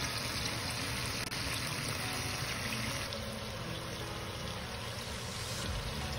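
Chicken drumsticks searing in hot oil in a Dutch oven: a steady, dense sizzle as the fat renders.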